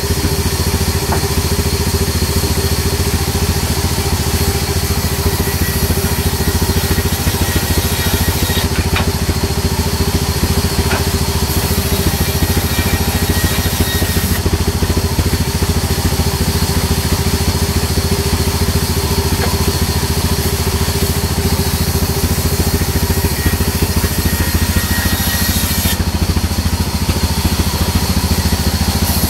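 Large sawmill band saw running steadily while sawing a neem (margosa) log lengthwise into planks: a constant machine drone with a steady low hum under it.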